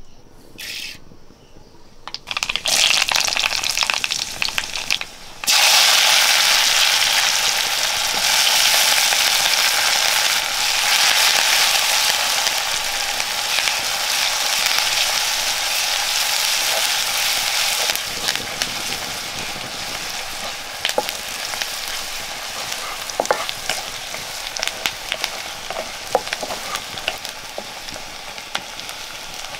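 Hot oil in a metal kadai sizzling as sliced shallots, dry red chillies and curry leaves go in. It starts about two seconds in and gets much louder a few seconds later, then keeps frying under a spatula with scattered scrapes and ticks against the pan. The sizzle slowly dies down over the last ten seconds.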